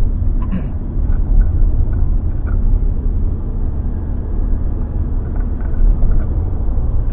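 Steady low rumble of engine and road noise inside a moving car's cabin, with a few faint ticks.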